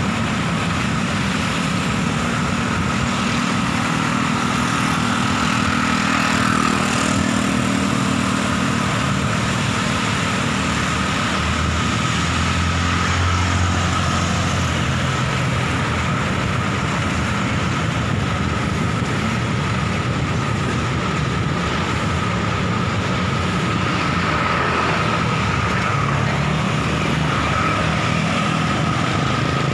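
Steady road-traffic noise heard from a moving vehicle: motorcycle and car engines running close by, with a thin steady whine throughout. A deeper engine hum swells for a few seconds about midway.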